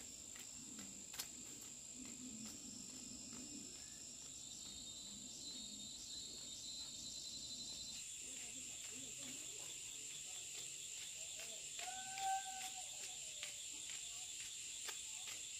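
Steady, high-pitched insect chorus, with scattered faint clicks and a short pitched call about twelve seconds in.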